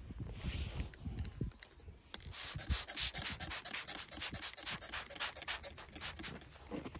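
Plastic trigger spray bottle pumped rapidly, a quick run of short sprays of water several a second, starting about two seconds in and stopping shortly before the end.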